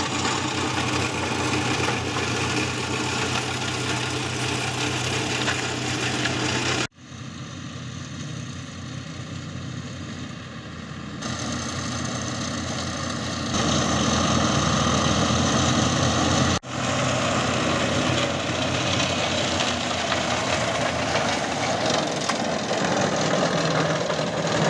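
John Deere tractor engine running under load, driving a rear-mounted PTO flail shredder that chews up olive prunings into mulch. The sound drops quieter about seven seconds in and grows loud again about halfway through as the machine comes close, breaking off briefly twice.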